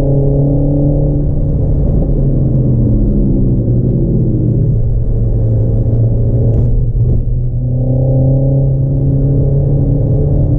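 Renault Megane RS Trophy's turbocharged four-cylinder engine heard from inside the cabin on track, its revs climbing and falling through the gears. A short sharp click comes about six and a half seconds in, then a brief drop in revs before the engine pulls up again.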